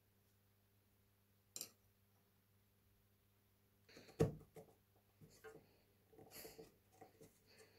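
Handling sounds from a steel trowel with a wooden handle and metal ferrule: a light click about one and a half seconds in, then from about four seconds a sharp knock followed by scattered small clicks and rubbing as the handle and ferrule are gripped and turned.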